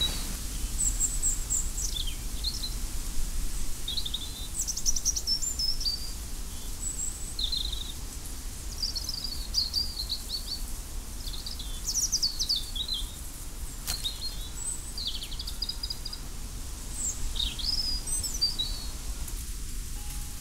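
Small birds chirping and trilling on and off, over a steady low outdoor rumble, with one sharp click about two-thirds of the way through.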